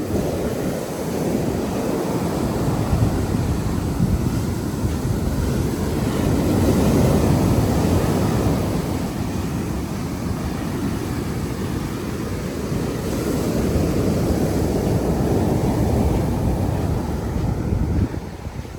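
Sea waves washing onto the beach, mixed with wind buffeting the microphone, a steady low rumble that swells twice and drops off suddenly near the end.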